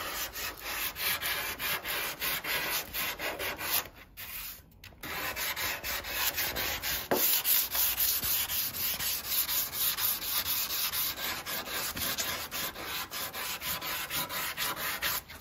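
Hand sanding with 240-grit sandpaper on a small block, in quick back-and-forth strokes over filler on a windsurf board's rounded rail, with a short pause about four seconds in. The sanding is taking the filler down to the board's surface before priming.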